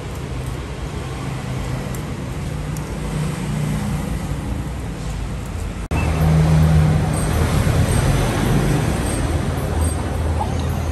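Steady low engine rumble, like road traffic, that cuts off abruptly about six seconds in and comes back louder.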